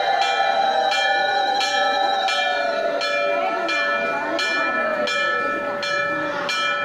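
Metal temple bell struck steadily, about three strokes every two seconds, each stroke ringing on into the next, with a held chanting voice underneath.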